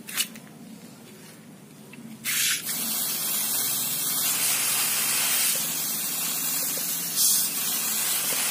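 Water spraying in a steady, even hiss that starts about two seconds in, after a short click near the start.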